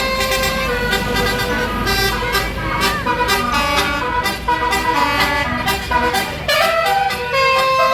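Tour bus's basuri telolet horn playing a quick melody of stepped notes over the bus's running engine. The engine rumble drops away about six seconds in while the horn tune carries on.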